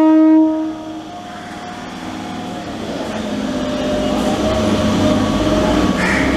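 Suburban electric train's horn blast that cuts off under a second in, followed by the train's low running rumble and wheel noise building steadily as it pulls away from the platform.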